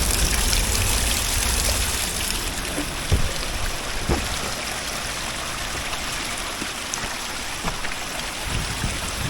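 Water from a small coastal waterfall stream running and trickling over rocks, a steady rushing, with a few light knocks about three and four seconds in.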